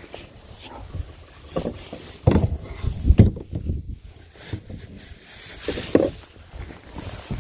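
Irregular knocks, thumps and rustling of fishing gear being handled in a plastic kayak, with a low rumble under them, the loudest thumps about two and three seconds in and again near six seconds.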